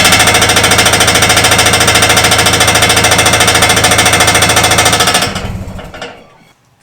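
Nissan GU Patrol's ZD30 3.0-litre four-cylinder turbo-diesel idling with a loud, rapid rattle: the 3-inch exhaust is tapping against the side of the tow bar. The sound stops about five seconds in and fades away.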